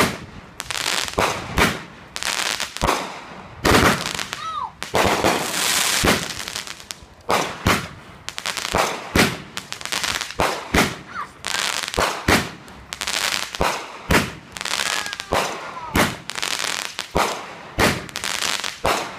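A consumer multi-shot aerial firework cake firing its finale: a fast string of sharp bangs, about two a second, with crackling in between.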